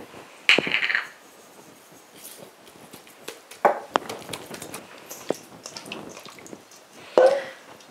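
Hands working a whole raw duck and dipping into a bowl of butter-and-citrus marinade: soft wet squishes with scattered light clicks and knocks on the board and steel bowl.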